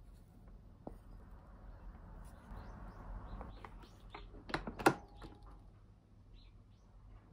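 A wooden rice paddle scrapes and scoops cooked rice into a ceramic bowl. Then the lid of a Tiger rice cooker is swung shut and latches with a sharp click about five seconds in, the loudest sound here.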